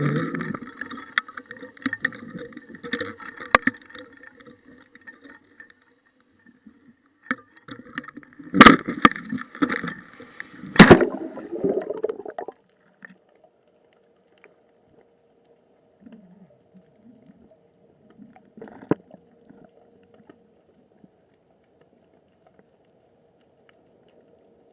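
Muffled water and handling noise heard through a waterproof action-camera housing on a fishing rig, with two sharp knocks against the housing about nine and eleven seconds in. After that it drops to a faint steady underwater hum with occasional light crackles.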